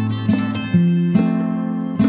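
Background music: acoustic guitar strumming a chord progression, with chord strums about every half second.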